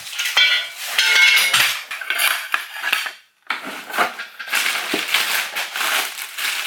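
Parts of a new lawn mower and its packing being handled during unboxing: irregular clinking and clattering with rustling, breaking off briefly about three seconds in.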